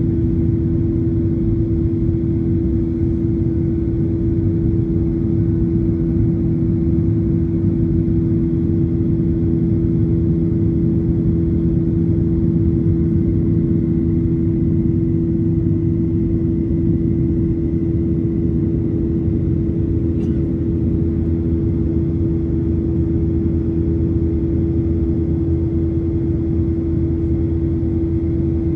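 Steady cabin noise inside a Boeing 737-800 during the climb: a constant low rumble of its CFM56 jet engines and airflow, with an even hum running through it.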